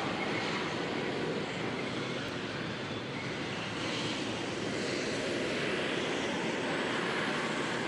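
Gas-turbine engines of T-80U tanks running as the tanks drive, a steady rushing noise with no clear pitch.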